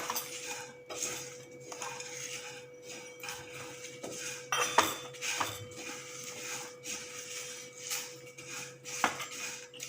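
A spoon stirring and scraping whole spices being dry-roasted in a pan, with irregular clinks and scrapes against the pan, a few sharper knocks about halfway through and near the end, over a faint steady hum.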